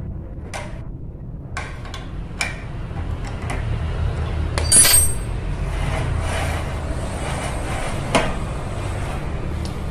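Small metal clicks and clinks of pliers working the nuts on the bolts of a carriage block on a steel rail, with one louder metallic clink and brief ring about five seconds in and another click near the end. A steady low rumble runs underneath.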